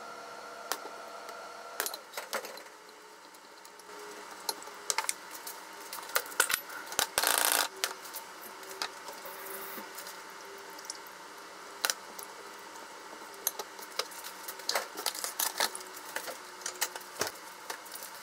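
Kitchen handling sounds: a spoon and utensils clinking and tapping against glass and ceramic bowls in scattered single knocks, with a brief rustle about seven seconds in.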